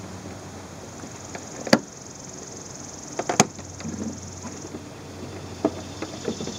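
Rubber air intake hose being wiggled and pulled off the throttle body by hand, with light rubbing and rustling, a sharp click nearly two seconds in and a quick cluster of clicks about three and a half seconds in.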